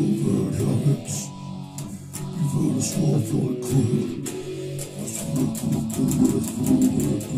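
Electric guitar being strummed in a continuous rhythmic riff, most of its sound sitting low.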